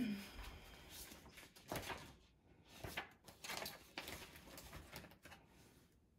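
Faint, scattered soft knocks and short rustles of things being handled while someone looks something up.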